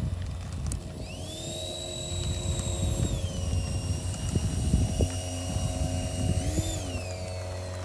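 Twin 64 mm electric ducted fans of a radio-controlled A-10 Thunderbolt II model jet whining as it taxis. The whine rises about a second in, holds, drops to a lower pitch around three seconds in, swells briefly near the end and winds down, over a low rumble of wind on the microphone.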